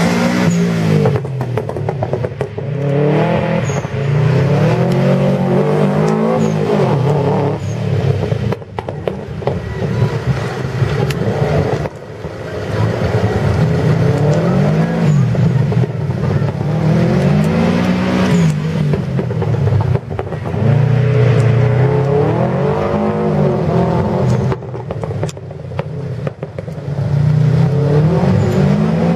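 Subaru Impreza rally car's flat-four engine revving up and dropping back again and again as it is driven hard around a tight course, its pitch rising and falling every few seconds.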